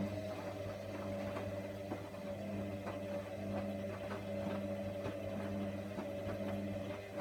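Hoover washer dryer running its wash cycle with a load of towels: a steady motor hum with frequent soft, irregular clicks and knocks from the turning drum.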